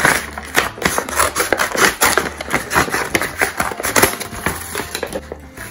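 Scissors cutting through a kraft paper mailer bag: a quick run of snips with crackling paper, several a second, easing off near the end.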